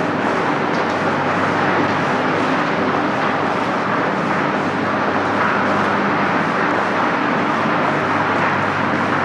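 A steady mechanical hum under an even rushing noise, unchanging throughout.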